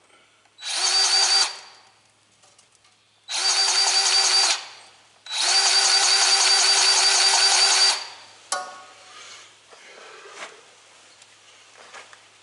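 Power grease gun's motor whining in three runs, short, short, then longer, each starting and stopping sharply, as grease is pumped into the fittings of a John Deere 336 small square baler. A single sharp click follows the last run.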